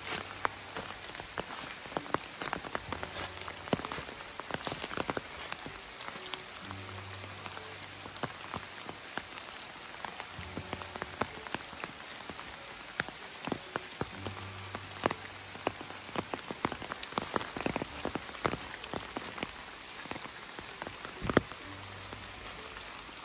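Irregular sharp pattering and crackling on a forest floor of fallen leaves. A low hum comes and goes every few seconds.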